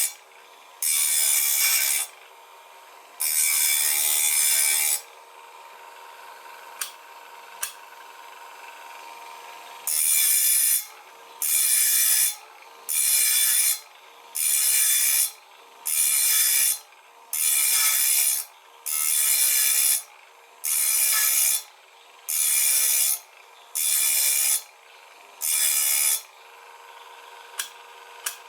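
Saw-blade sharpening machine's grinding wheel running steadily, with a loud rasp each time the wheel is brought onto a tooth of a circular saw blade. Two grinds at the start, a pause with a few light clicks, then a regular run of about eleven grinds, one every second and a half.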